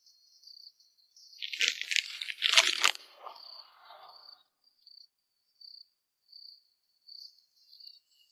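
A cardboard box being picked up and handled, with a crinkling, crunching burst lasting about two seconds. It is followed by faint, high chirps repeating at a steady pace.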